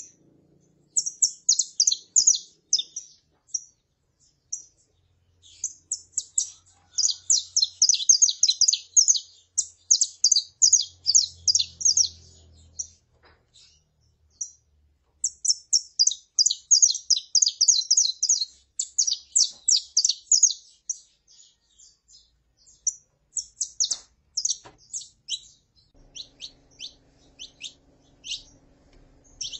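Saffron finches: a female calling and a male singing, in runs of rapid high chirps lasting a few seconds each with short pauses between, thinning to scattered single notes near the end.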